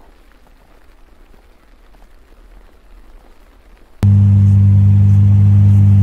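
Faint, even background noise, then about four seconds in a loud, steady low hum cuts in abruptly and holds without change.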